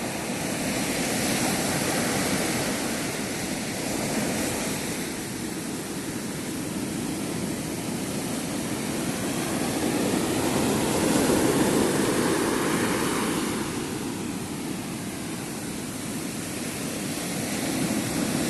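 Sea surf breaking on a beach: a continuous rush of water that swells and eases as each wave comes in, loudest about halfway through.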